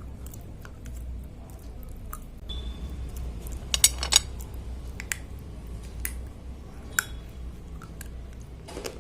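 Slate pencils being bitten and crunched: sharp cracking snaps, a quick cluster of them about four seconds in and single cracks a few times after, over a steady low hum.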